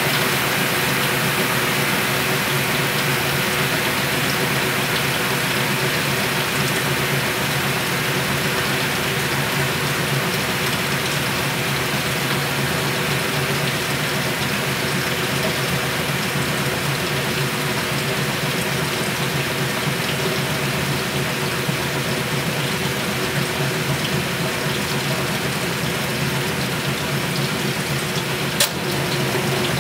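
1963 Frigidaire Custom Imperial washer spinning its basket: a steady motor hum with water rushing through the tub. A single sharp click comes near the end.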